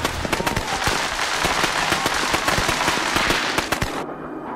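Firecrackers going off in a rapid, irregular string of sharp cracks and pops, which cut off suddenly about four seconds in.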